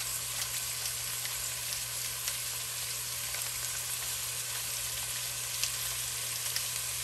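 Diced chicken breast frying in a little oil with sautéed onion, garlic and celery in a stainless steel pot. It makes a steady sizzling hiss with small scattered pops.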